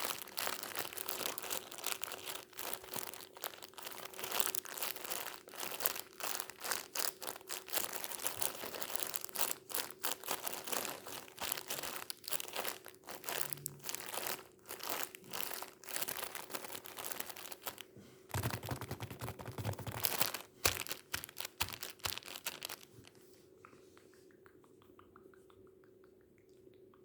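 Tissue paper being crumpled and crinkled close to the microphone: dense rapid crackling and popping that stops about 23 seconds in, leaving only faint small sounds. A faint steady hum lies underneath.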